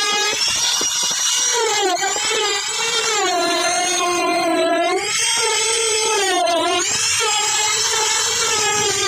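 Electric power tool motor running continuously, its whining pitch dipping and rising again several times.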